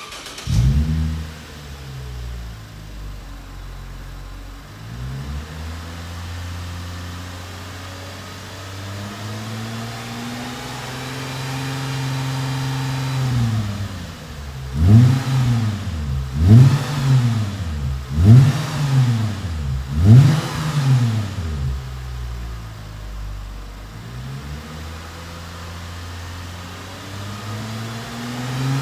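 Exhaust of a 120-series Toyota Mark X V6 through an aftermarket rear muffler section with silencers and four 50.8 mm tips. The engine fires up with a brief loud flare and settles to idle, is raised and held at higher revs for a few seconds around the middle, then is blipped four times in quick succession before dropping back to idle.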